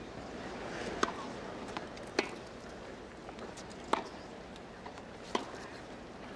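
Tennis rackets striking the ball in a rally: a serve about a second in, then three more sharp pops, each between one and two seconds apart, with faint bounce ticks between them.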